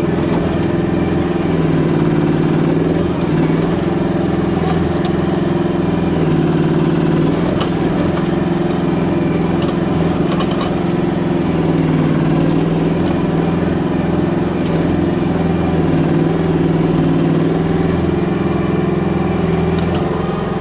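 Small engine of a Chinese micro excavator running steadily while it digs out a stump. Its pitch dips and recovers several times as the hydraulics take load, with a few light knocks from the bucket and arm.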